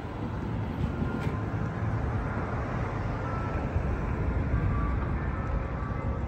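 Steady street traffic noise: a continuous low rumble of cars on a busy boulevard.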